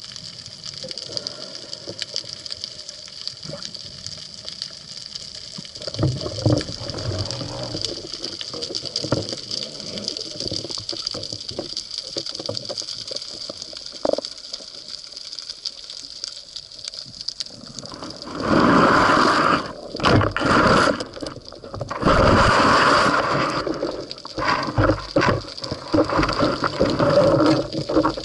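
Muffled underwater noise from a camera sealed in a waterproof housing on a speargun: faint scattered clicks and water movement, with a steady high tone throughout. About two-thirds of the way in it gives way to louder rushing surges of water.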